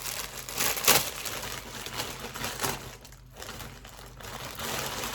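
Packaging and fabric rustling and crinkling as a folded tote bag is taken out and unfolded, with a sharper crackle about a second in.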